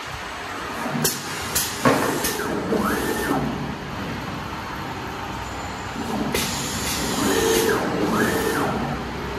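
Flatbed screen printing press cycling twice, about five seconds apart. Each cycle has short pneumatic hisses and a motor whine that rises, holds, then falls as the print stroke runs.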